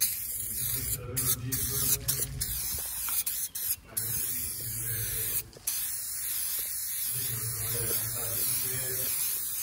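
Aerosol spray paint can hissing as paint is sprayed, stopping briefly several times when the nozzle is released.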